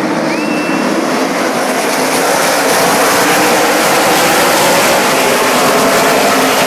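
The pack of NASCAR race trucks at full throttle, many V8 engines running together as the field takes the green flag and streams past the grandstand. The sound gets louder about two seconds in as the bulk of the pack passes.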